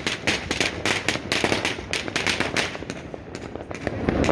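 Fireworks and firecrackers going off in a rapid string of sharp cracks, about five or six a second, thinning out after about three seconds.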